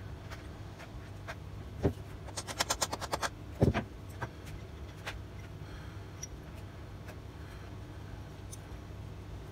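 Small metal parts of a freshly painted bench vice clicking and knocking together as they are handled and fitted back together: a quick run of light clicks about two to three seconds in, a heavier knock near four seconds, then only faint handling over a steady low hum.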